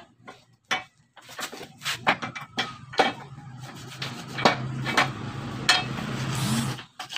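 Hand brush scraping in short strokes over the rusted steel of a Honda Supra X exhaust pipe, scrubbing off rust to show where the metal has corroded through. A steady low hum runs underneath from about two seconds in and cuts off near the end.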